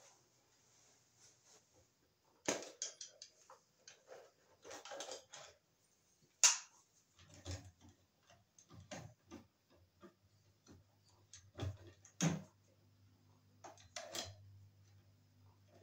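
Pliers clicking and snapping against wires and a metal ceiling electrical box, with scattered rustling; the sharpest snap comes about six and a half seconds in, another about twelve seconds in.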